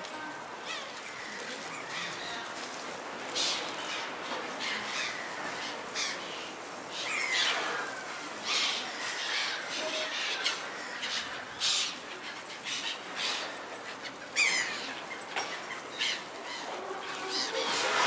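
Gulls calling again and again with short, harsh squawks, several falling in pitch and some overlapping, over a steady background hiss.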